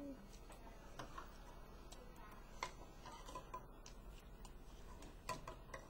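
Metal spoons clinking and scraping in ceramic cereal bowls: a few faint, irregular clicks, the sharpest near the end.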